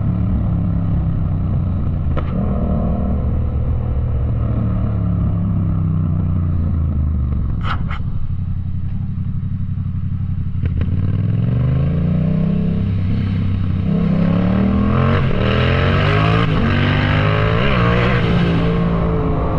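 Yamaha MT-07's parallel-twin engine running at a steady pace, then easing off with two sharp pops around the middle. After that it accelerates hard, the revs rising again and again through several upshifts.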